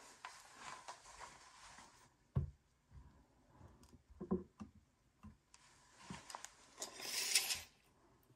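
Handling noise as two rifles are moved and set side by side: rustling, several dull knocks (the first sharpest, about two seconds in, another cluster about four seconds in), and a louder rustle near the end.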